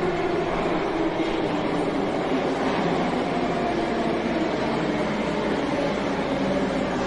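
Subway train running: a steady rumble and rushing noise with faint motor tones that drift slowly in pitch.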